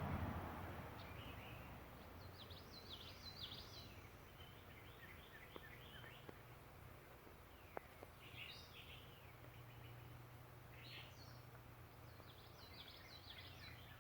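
Faint songbirds calling and singing in short, scattered bursts of high notes over a low steady background hum, with a few small clicks in the middle.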